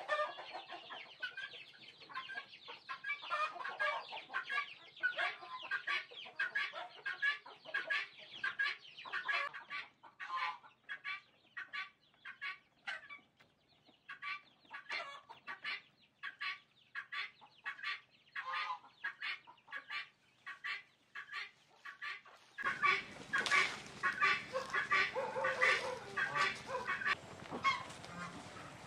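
Domestic poultry clucking and calling: a dense run of short, repeated calls that thins out midway. About three-quarters of the way through, a steady low background noise comes in and the calls grow louder.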